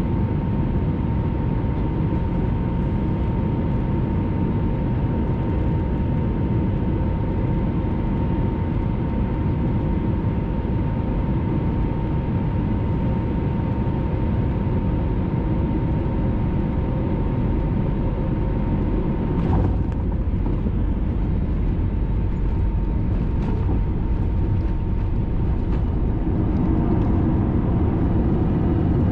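Airliner cabin noise during a jet landing: steady engine and airflow rumble with a thin steady whine that fades out midway. A short knock about twenty seconds in, as the wheels touch down, and the rumble grows louder near the end on the landing roll.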